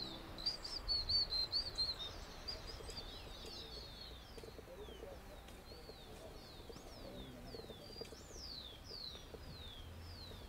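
Small birds chirping: a quick run of high calls, then a string of short, downward-sliding notes repeated about twice a second, over faint low background noise.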